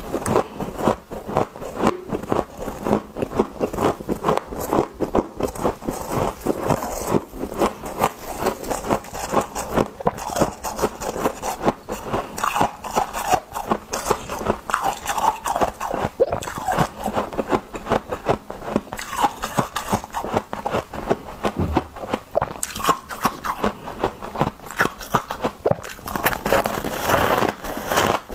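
Close-up crunching of freezer ice being bitten and chewed: dense, irregular crackling crunches, several a second, with no pause.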